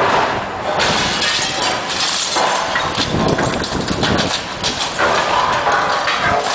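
Bricks and rubble clattering and tumbling down in a long run of many small knocks as a brick wall is pushed over during demolition.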